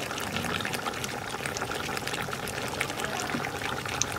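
Marinated chicken sizzling and bubbling in its own yogurt and meat juices in an open pot on a low flame, with no water added: a steady hiss with many small crackles.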